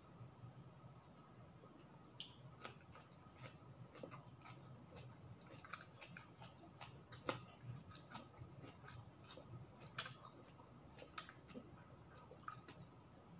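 A person chewing a mouthful of chicken adobo and rice close to the microphone: soft, irregular mouth clicks and smacks, a few of them sharper.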